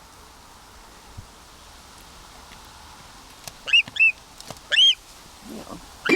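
Young gyrfalcon giving three short, loud, arched calls about four seconds in, the first two close together, over a steady background hiss.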